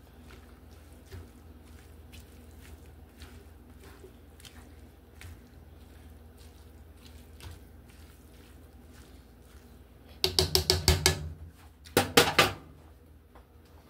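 Spatula stirring cabbage and kale in a skillet: faint scraping and light taps, then about ten seconds in two short bursts of rapid clattering of the spatula against the pan.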